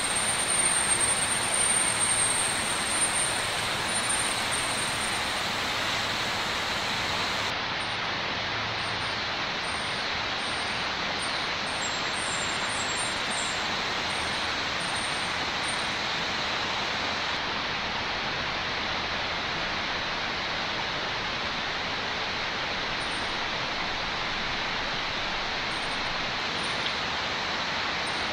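A forest stream rushing steadily over rocks, a little louder in the first few seconds.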